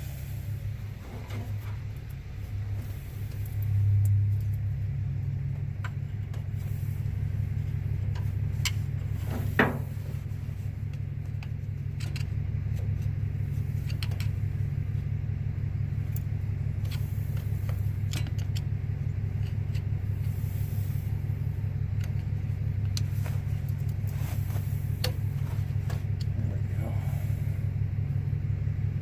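John Deere 4630 tractor's six-cylinder diesel engine idling steadily, with a brief rise about four seconds in and one sharp click near ten seconds. It runs with a freshly replaced fuel hose on the leaking line.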